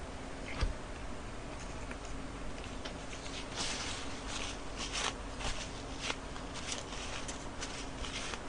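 Paper napkin rustling and crinkling in the hands as fingers are wiped, in short, irregular crackles that thicken in the second half. A single thump about half a second in.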